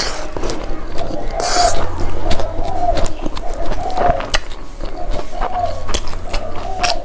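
Close-miked chewing of a handful of rice and fried chicken, with wet mouth smacks and many sharp clicks, and a short breathy hiss about a second and a half in.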